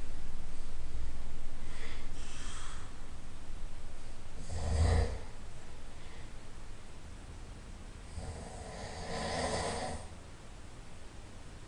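A person snoring in sleep, one breath at a time: a soft breath about two seconds in, a short, loud snort just before the five-second mark, then a longer snoring breath from about eight to ten seconds in. A low rumble is loudest during the first couple of seconds.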